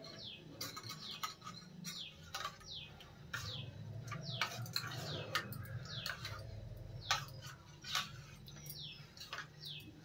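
Fingers mashing biscuits into milk in a small steel bowl, with light clicks and scrapes. Short high squeaky chirps, each falling in pitch, repeat about once a second over a low steady hum.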